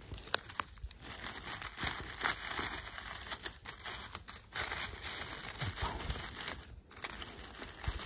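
Dry leaf litter, twigs and pine needles rustling and crackling as a hand rummages in the forest floor, picking chanterelle mushrooms. A few sharp clicks stand out among the crackle, most of them in the first second.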